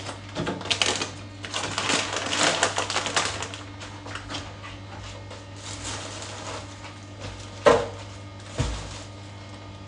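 Crinkling plastic packaging and clattering household items being handled, with dense crackly rustling for the first few seconds. Two sharp knocks near the end, the first the loudest, as things are set down; a steady low hum underneath.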